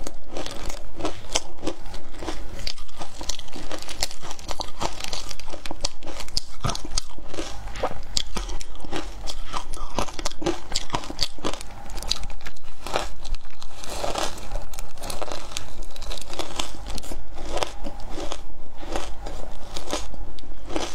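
Crushed matcha ice crunching and crackling as it is bitten, chewed and squeezed in gloved hands, a dense unbroken stream of crisp crackles picked up close to a clip-on microphone.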